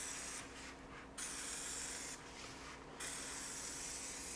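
Aerosol can of Tescon acrylic primer spraying onto a concrete floor slab, hissing in three bursts of about a second each with short pauses between.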